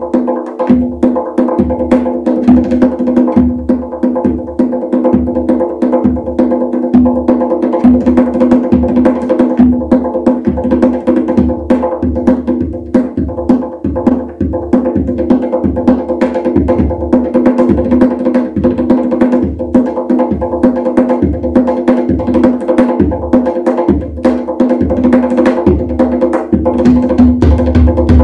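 Tonbak, the Persian wooden goblet drum with a natural skin head, played with the fingers: a fast, dense stream of finger strokes and rolls over the head's steady ringing pitch, with deep bass strokes mixed in.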